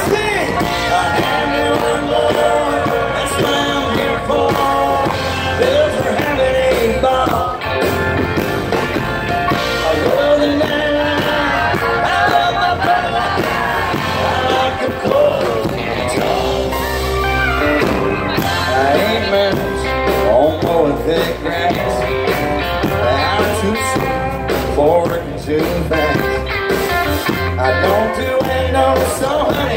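Live country-rock band playing loudly through a concert PA: electric and acoustic guitars over a heavy bass, with a male lead vocal.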